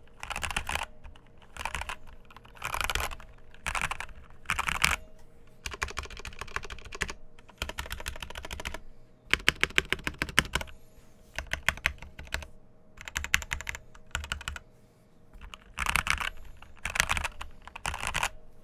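Typing on a Feker JJK84 75% mechanical keyboard with Gateron Milky Yellow linear switches and XDA-profile keycaps. The keystrokes come in short bursts separated by brief pauses, with a fast, dense run of strokes around the middle.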